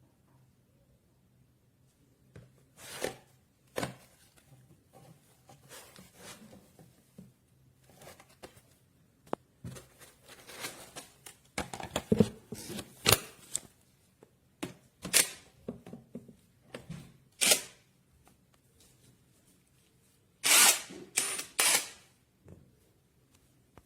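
Scattered clicks, taps and rustles of things being handled, with no steady motor sound. Sharper knocks come about three and four seconds in, a busier run of clicks around the middle, and a close cluster of loud clicks near the end.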